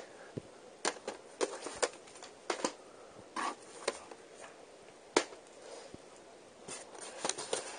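VHS tapes in plastic cases being handled and set down: irregular light clacks and short rustles, the sharpest about five seconds in.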